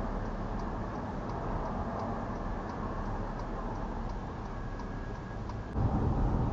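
Car interior road noise recorded by a dash cam, with a faint even ticking about three times a second, typical of a turn signal relay. Near the end the low road rumble gets louder.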